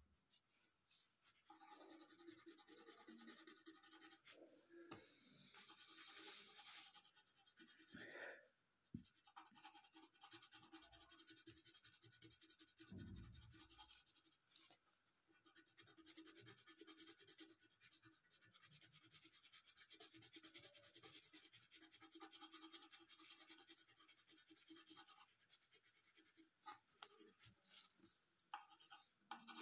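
Faint scratching of a colored pencil shading on paper, going on in short strokes, with a few soft knocks and a brief low bump about halfway through.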